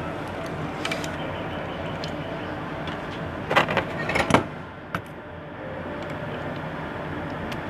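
Laptop parts and tools handled during reassembly: a few light clicks, then a louder cluster of knocks and clatter about three and a half seconds in, and a single knock just after, over a steady background hum.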